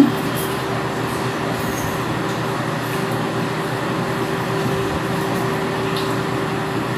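Steady background hum and hiss with a constant low tone, unchanging throughout, like a running fan or distant traffic. A brief low sound right at the start is the loudest moment.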